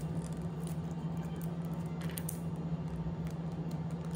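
Faint light clicks of small plastic figures handled with long acrylic nails, a few near the start and about two seconds in, over a steady low hum.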